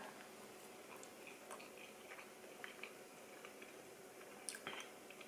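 Faint sounds of a person chewing a bite of pumpkin oatmeal pancake: soft, scattered mouth clicks, a little louder twice about four and a half seconds in.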